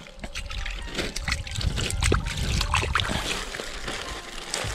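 Water splashing and trickling in a run of small splashes and clicks, as groundbait is scattered into the swim to draw tench.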